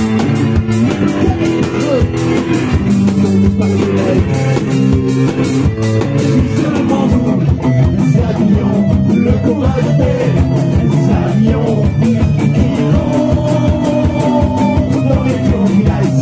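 Live rock band playing loud and steady: strummed electric guitar over a driving drum kit, with a saxophone in the lineup.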